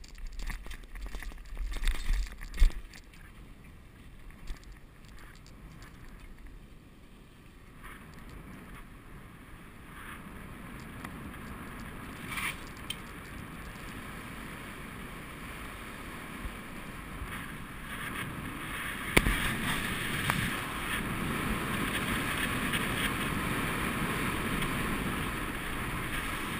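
Bicycle riding with wind rushing over a GoPro's microphone and tyre noise, with a few sharp knocks from bumps in the first few seconds on the dirt trail. The rush grows louder in the second half as the bike picks up speed on paved road.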